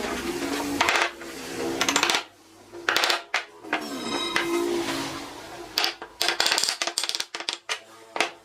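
A series of short, rasping strokes of hand tools working wood. They come in bursts, a few spaced about a second apart and then a quicker run near the end, over a background of music.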